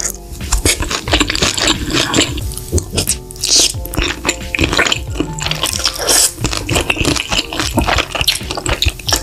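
Close-miked eating of cream pasta: wet slurping as strands of noodles are sucked in, and chewing, in quick irregular smacks. Music plays underneath.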